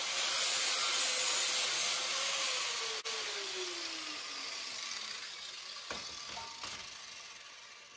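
Electric angle grinder grinding on the metal go-kart frame, then switched off about two seconds in. Its motor whine falls steadily in pitch as it winds down over several seconds, and a couple of light knocks come near the end.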